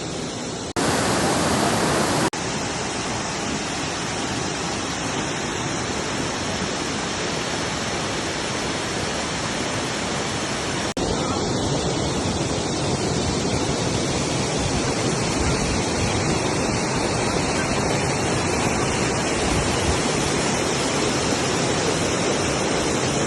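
Steady rush of falling water from a waterfall, heard across several cut-together clips. A short, louder stretch comes about a second in.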